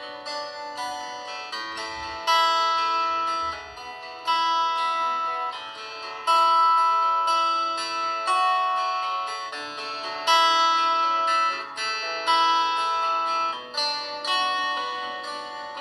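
Honor 9 Lite phone ringtone playing: a plucked-string melody of separate notes, each struck sharply and fading away, with little bass.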